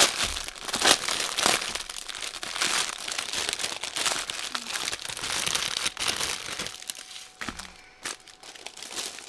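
Clear plastic bag crackling and crinkling loudly as hands work it open and pull out the bundle of diamond-drill packets inside. It dies down about seven seconds in.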